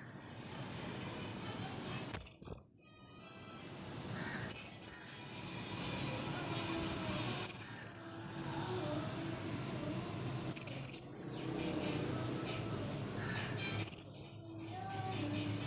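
Blue-crowned hanging parrot (serindit) giving short, high-pitched double chirps, five times at roughly three-second intervals.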